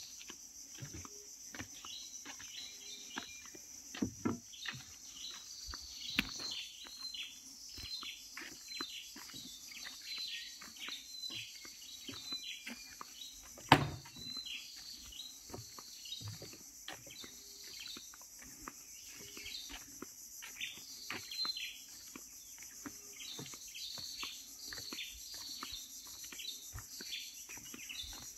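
Forest ambience: a steady high insect drone with a bird giving a long series of short, downward chirps, a couple each second. A sharp knock about fourteen seconds in is the loudest sound.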